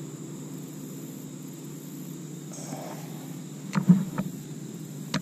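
Steady low rumble, with a few sharp knocks and taps about four seconds in and one more near the end, from handling a bass on a plastic measuring board on a kayak.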